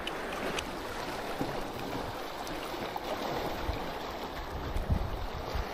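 Strong wind rushing and buffeting the microphone over water lapping and sloshing, with low gusty rumbles in the second half.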